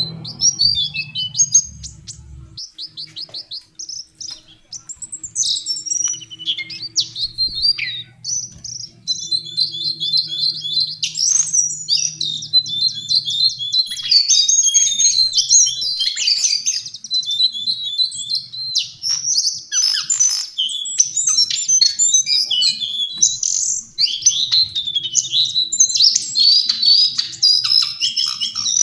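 Lesser shortwing (Brachypteryx leucophrys) singing a high, rapid, varied warbling song of quick trills and repeated notes. It is broken by short pauses at first and runs almost without a break from about nine seconds in.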